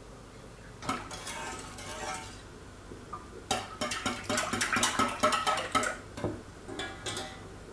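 Wire whisk beating a thin egg-and-milk batter in an enamel pot: a quick run of clicks and scrapes as the wires strike the pot's sides, loudest through the middle, with softer strokes before and after.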